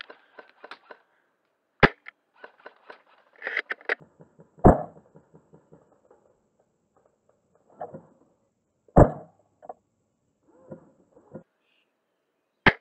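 Novritsch SSG24 spring-powered bolt-action airsoft sniper rifle firing and being cycled: four sharp snaps a few seconds apart, the loudest about five and nine seconds in, with smaller clicks and rattles between.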